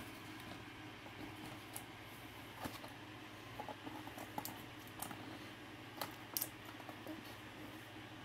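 Motorized display turntable running with a steady low hum, with irregular light clicks scattered through it.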